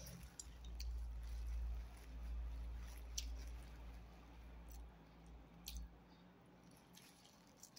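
A person chewing food close to the microphone, with wet mouth sounds and a few sharp clicks. A low rumble runs underneath and stops about six seconds in.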